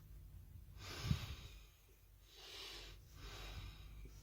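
A person breathing softly close to the microphone, about three breaths, the first with a low bump about a second in.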